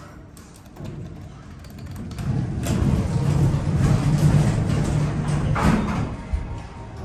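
Hydraulic elevator machinery running with a steady low hum that builds about two seconds in and stops near six seconds, ending with a brief clatter.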